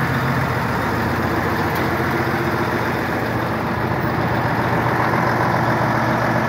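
Fire engine idling: a steady, even engine drone with no change in speed.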